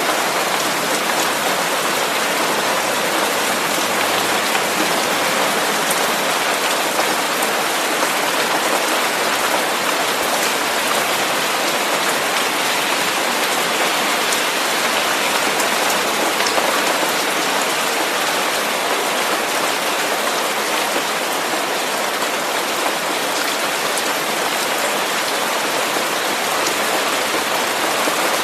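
Steady rain falling: an even hiss with faint ticks of single drops.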